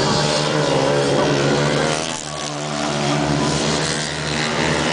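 500cc grasstrack sidecar outfits racing past on a dirt track, several engines running hard at high revs with their pitch wavering up and down. The noise eases briefly about two seconds in.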